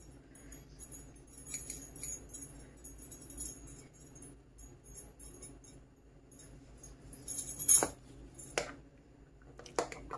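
Small metal mesh sieve tapped and shaken over a glass bowl to sift flour, a light jingling rattle of the mesh and rim, with a few louder knocks of the sieve against the bowl about three-quarters of the way through.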